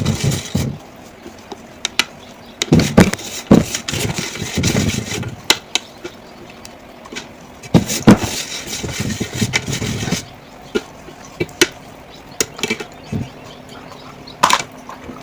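Dry clay pot pieces being broken and crunched: irregular sharp snaps and gritty crumbling in several dense clusters, with scattered single cracks between them.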